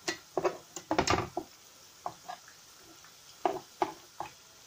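Utensil clinking and knocking against a frying pan while meatballs are moved in it, in two bursts of short sharp knocks about two seconds apart.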